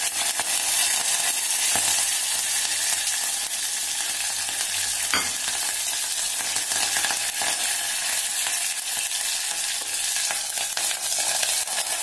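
Curry leaves and green chillies sizzling in hot oil with mustard seeds for a tadka, a steady frying hiss with scattered crackles and a sharper pop about five seconds in.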